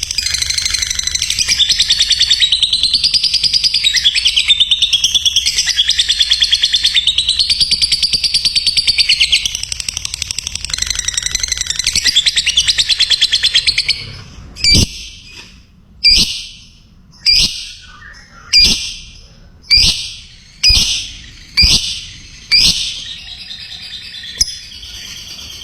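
Lovebird singing a long, rapid, unbroken high chattering trill (the 'ngekek' song) that wavers up and down in pitch for about fourteen seconds. It then gives a run of single sharp calls, roughly one a second, before fainter chatter near the end.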